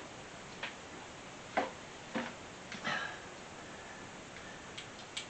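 Scattered light clicks and knocks, about six spread over a few seconds, from handling small parts of a lawn mower's carburetor and choke linkage.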